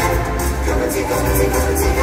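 Upbeat dance music with a strong bass beat, played loud through a stage PA system and heard from the audience.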